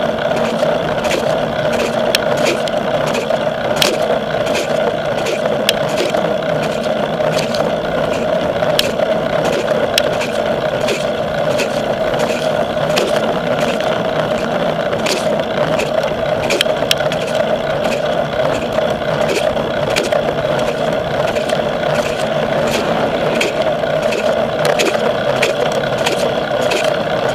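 A bicycle rolling along a road: a steady rush of tyre and wind noise, with many small rattles and clicks over bumps in the surface.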